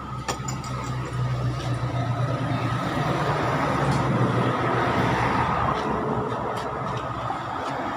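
A motor vehicle engine running with a steady low hum, growing louder to a peak about halfway through, then easing off.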